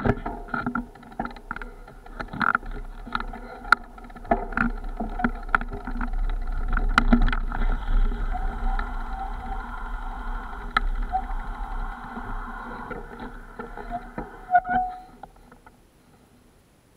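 Mountain bike rolling over a rough dirt track, heard from a camera on the bike: frequent knocks and rattles over the bumps with a steady low wind rumble on the microphone. It dies away near the end as the bike comes to a stop.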